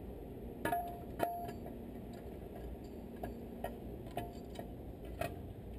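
Light metallic clinks, about seven spaced irregularly with a brief ring, the two loudest about a second in, as steel brake-shoe hardware (shoe, return spring) is handled and fitted on an air drum brake. A steady low hum runs underneath.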